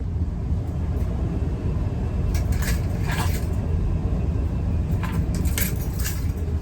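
Golf-cart-style utility buggy driving along: a steady low rumble of the moving cart, with a few brief knocks or rattles partway through and again near the end.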